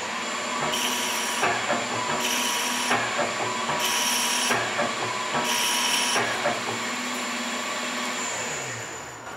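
Metal lathe spindle running at about 1050 RPM with a steady whine while the stepper-driven ball-screw carriage screw-cuts a 1 mm pitch thread in four passes, heard as four short bursts of higher-pitched noise about a second and a half apart.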